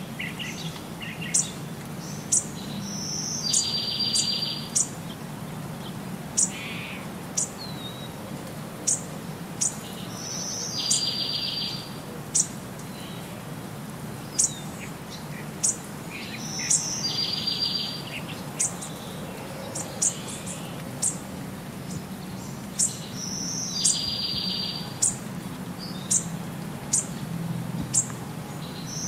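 Birdsong: many short, high chirps, with a longer trilled phrase that comes back about every seven seconds.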